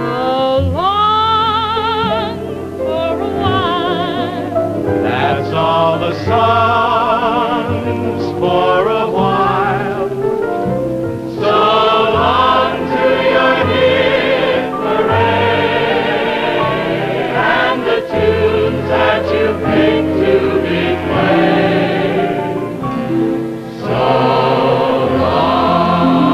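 Vocal music: a choir singing with strong vibrato.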